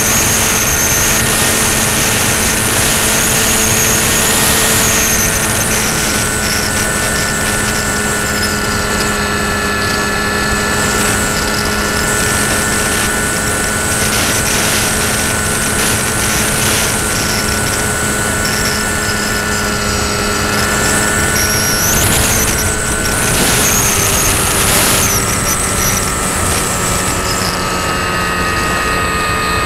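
RC model aircraft's motor and propeller running steadily, heard from the aircraft's onboard camera, with wind rushing over the microphone. The whine stays at one pitch, then drops slightly lower about three-quarters of the way through.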